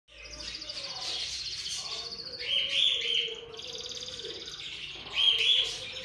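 Cockatiels chirping: a rapid, steady high chatter, with louder calls breaking in twice, about two and a half seconds in and again near the end.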